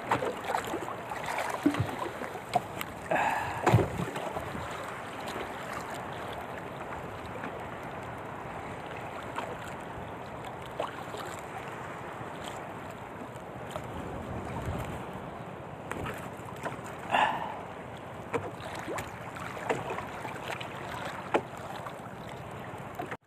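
Strong wind and choppy waves slapping against a small outrigger canoe at sea, a steady rushing wash. A few short knocks from handling in the boat come in the first four seconds and once more later.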